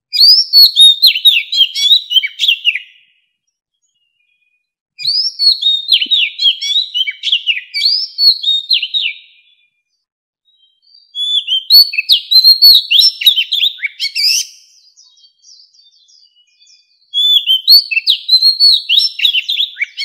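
Oriental magpie-robin, a mature wild bird, singing: four phrases of quick, varied whistled notes, many of them sliding down in pitch, each a few seconds long with short pauses between.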